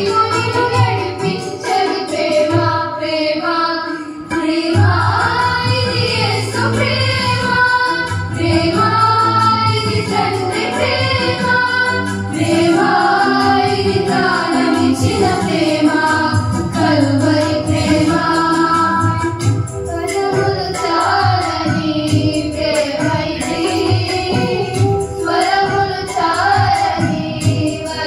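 A group of schoolgirls singing a song together in chorus into microphones.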